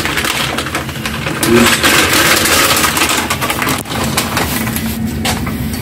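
Plastic bag of dried stockfish crinkling as it is handled, over a steady rushing noise.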